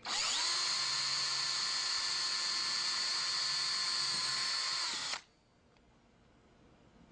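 Power drill with a 1/8-inch bit pre-drilling a pilot hole in a door jamb: the motor spins up, runs steadily for about five seconds, then winds down and stops.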